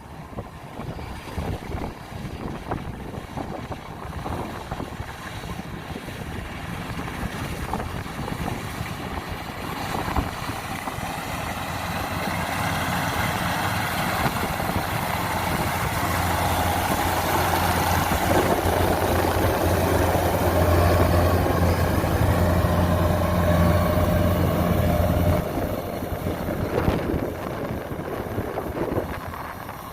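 Kubota combine harvester's diesel engine running and growing louder as the machine comes closer, with a steady deep hum for about fifteen seconds that drops off suddenly some five seconds before the end.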